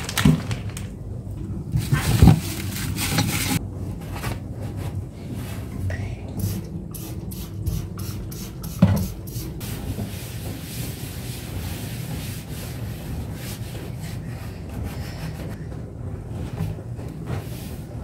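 A few knocks as things are taken out of a kitchen drawer, then a terry cloth towel rubbing over the drawer's inside surfaces.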